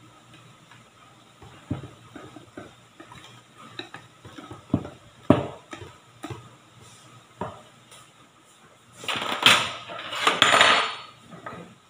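Wire balloon whisk clinking and scraping against a stainless steel mixing bowl as thick cake batter is stirred, in scattered knocks, with a louder stretch of metal clatter about nine seconds in.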